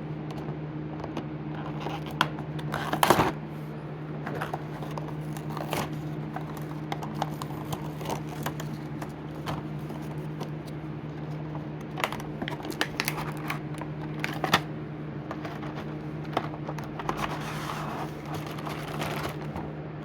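Cardboard and plastic blister packaging of a Hot Wheels five-pack being pried and torn open by hand: irregular clicks, crackles and rustles, loudest about three seconds in. A steady low hum runs underneath.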